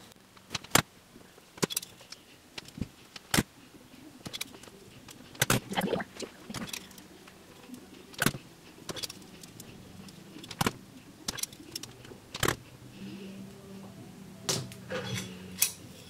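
Clamp curling iron clicking as its spring lever opens and snaps shut on the metal barrel: a series of sharp, irregularly spaced clicks while hair is wound onto it.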